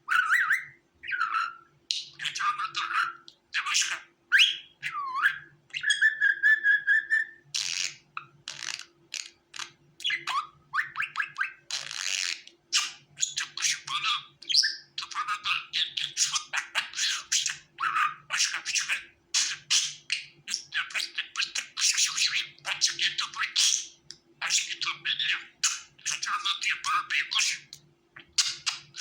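Budgerigars chattering and warbling: rapid chirps, clicks and squawks with hardly a pause, and one held whistled note about six seconds in.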